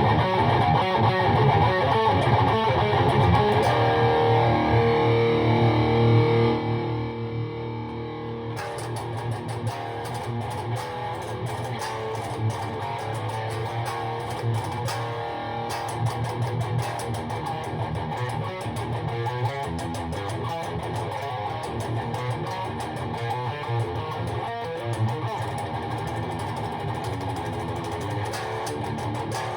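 Electric guitar with Seymour Duncan JB humbuckers played through a PRS MT-15 V2 tube amp into a 1x12 cabinet with a Celestion Vintage 30, heard in the room. Louder ringing chords and held notes come first, then the playing drops to a quieter, busier picked part from about six seconds in.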